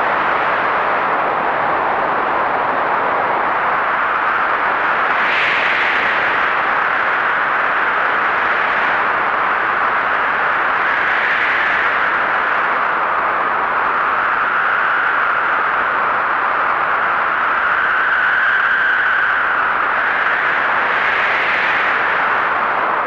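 Heavy blizzard wind blowing in a steady rush, swelling in gusts about five seconds in, again around eleven seconds and near the end, with a faint whistle through the middle.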